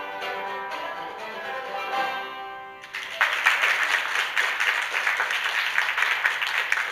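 A bluegrass band of five-string banjo, mandolin, acoustic guitar and upright bass plays the closing notes of a banjo tune, the last chord ringing out. About three seconds in, the audience breaks into applause that carries on to the end.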